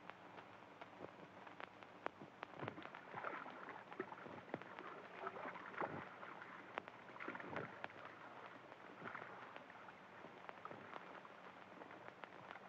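Faint water splashing and sloshing in irregular bursts as a canoe is pushed off into a river and a man wades through the shallows, over a steady low hum and hiss.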